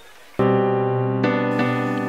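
Background music of sustained keyboard chords, starting about half a second in, with a change of chord about a second later.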